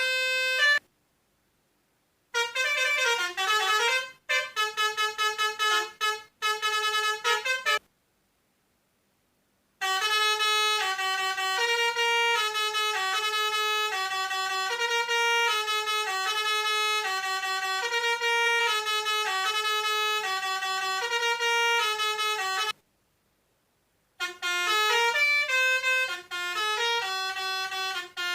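Toy pianika playing the telolet 'basuri' bus-horn melody: a long run of quick, bright, horn-like notes that stops dead three times and starts again.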